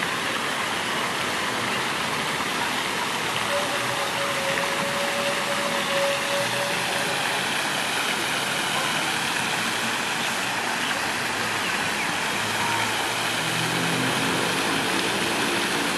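Steady rushing spray of a floating lake aerator fountain. A brief held high tone sounds a few seconds in, and a low humming sound comes in near the end.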